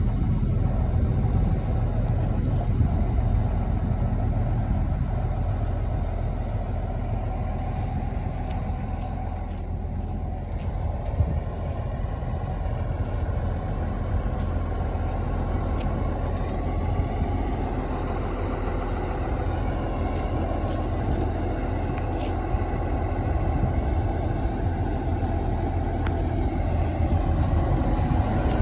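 Excavator engine running steadily, a continuous low drone with little change in speed.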